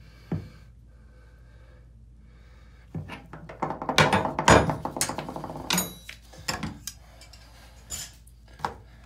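A large steel wrench clanking and scraping against the bathtub as it is taken off the drain and set down: a cluster of sharp knocks and clatters a few seconds in, one with a brief metallic ring, then a few lighter knocks.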